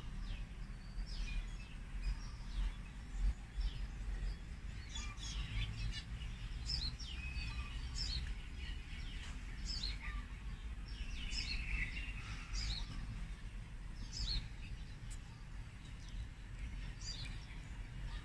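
Birds chirping: many short, high, sweeping calls repeated throughout, over a steady low rumble of wind on the microphone.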